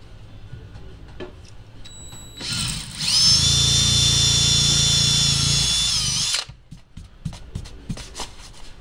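Cordless drill boring into the wedged end of a sledgehammer's wooden handle in the head's eye. After a few quiet seconds of light clicks, it runs at full speed as a steady high whine for about three and a half seconds, then stops suddenly.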